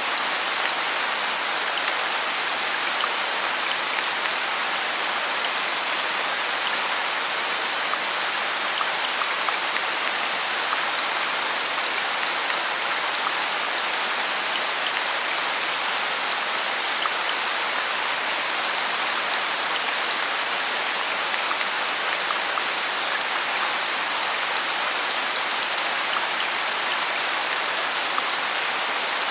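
Steady heavy rain falling on foliage and ground, a dense even hiss of drops with fine patter, no thunder.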